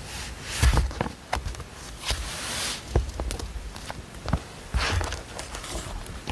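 Handling noises at a study desk: irregular light knocks and taps, with a rustle like paper being moved about two seconds in.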